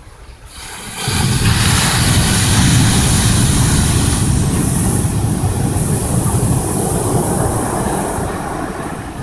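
Ocean surf breaking on the beach close by: a loud rushing roar that swells about a second in and eases a little near the end.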